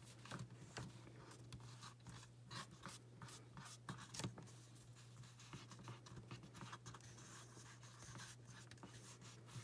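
Faint scratchy rubbing and light ticks of fingertips pressing and smoothing a lump of polymer clay on a sheet of paper, over a steady low hum.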